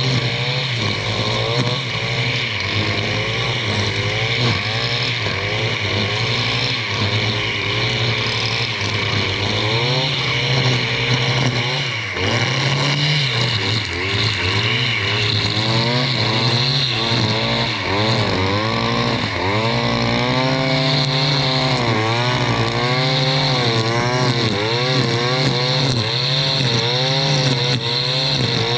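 Stihl FS 461 C-EM brushcutter's two-stroke engine running hard while cutting undergrowth. Its pitch rises and falls over and over as the load on the blade changes.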